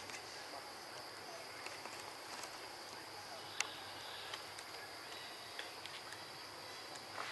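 Steady high-pitched insect drone of crickets or cicadas in the forest, with one sharp click a little over three and a half seconds in.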